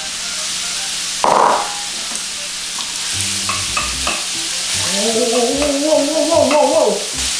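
Beef chunks sizzling as they sear in butter and oil in a hot nonstick frying pan, turned with a wooden spatula that knocks and scrapes against the pan. A short loud burst comes about a second in, and a drawn-out sung 'oh-oh-oh-oh' rises over the sizzle in the second half.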